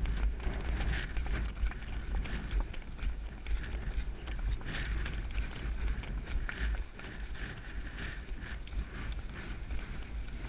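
Hoofbeats of a grey pony being ridden along a grass and dirt track, in uneven repeated beats, with a steady low rumble of wind on the helmet-mounted microphone.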